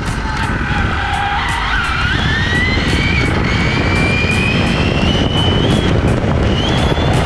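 Arrma Infraction 6S brushless RC truck accelerating flat out: the motor and drivetrain whine rises steadily in pitch as it speeds up to about 50 mph, over the rumble of its tyres on asphalt and wind on the onboard camera. The whine breaks off near the end as the throttle comes off.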